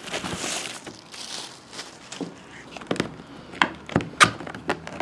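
Trading card box and foil packs being handled on a table: a soft rustle, then a run of sharp taps and knocks as cardboard and packs are set down and moved about.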